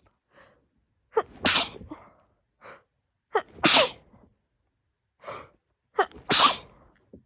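A woman's allergic sneezing fit set off by dogs: three loud sneezes about every two and a half seconds, each a short drawn-in 'ah' ending in an explosive burst, with a quick intake of breath before each.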